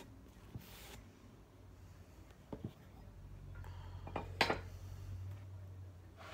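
Sharpening gear being handled between stones: a few light knocks and a brief scrape, with the loudest knock about four and a half seconds in.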